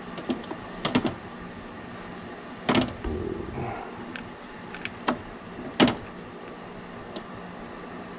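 Hand tools and control wires being handled at a terminal block: a handful of sharp clicks and knocks a second or two apart, over a steady low hum.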